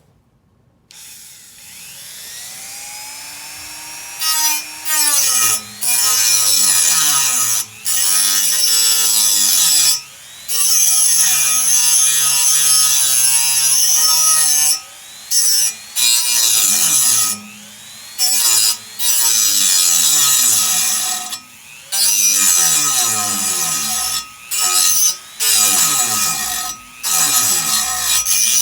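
A Dremel rotary tool spins up, rising in pitch, then grinds through a metal frame bar with a loud, high screech. The motor pitch wavers as the bit bites, and the cut breaks off for brief moments about a dozen times.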